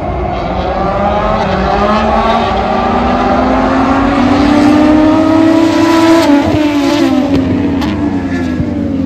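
Moto2 racing motorcycle at full throttle, its engine note rising and getting louder as it approaches, then dropping in pitch as it passes about six seconds in. A sharp pop comes about eight seconds in.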